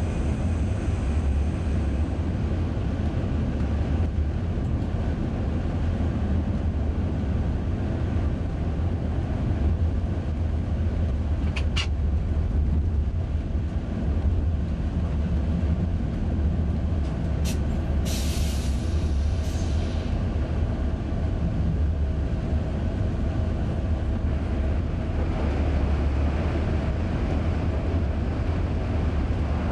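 Electric train running along the track with a steady low rumble. Brief high squeals come twice, about twelve seconds in and again around eighteen to twenty seconds in. The running noise grows fuller near the end as the train enters a tunnel.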